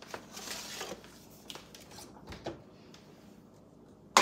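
An oven door is opened, with a soft rustle and a few small clicks and knocks. Right at the end comes a sudden loud metal clatter with a ringing tone, as a metal baking sheet meets the oven rack.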